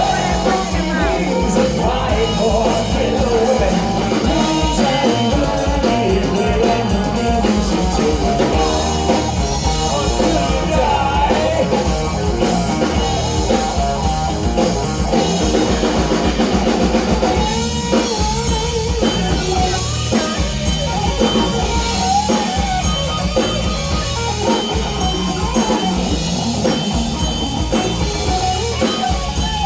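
Rock band playing live: drum kit, guitars and a singing voice.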